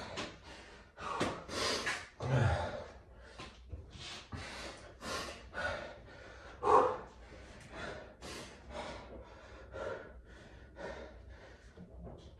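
A man breathing hard and fast, each breath in and out heard as a rough rush of air, winded from a long set of burpees and squats. A few breaths come louder than the rest, one about two seconds in and one about seven seconds in.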